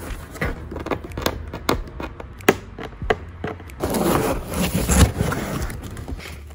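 Cardboard shipping box being handled and opened: a run of sharp knocks and taps on the cardboard, with a longer scraping rustle about four to five seconds in as the box comes open.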